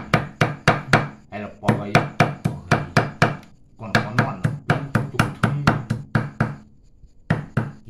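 Cleaver chopping fast on a thick wooden chopping block, mincing buffalo meat, about five strokes a second with two short breaks and two last strokes near the end.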